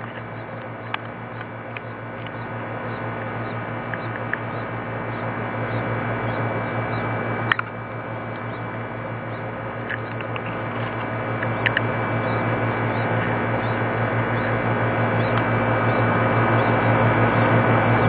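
Nestling songbirds begging in the nest: faint, thin high cheeps over a steady hiss and low hum, the whole growing gradually louder.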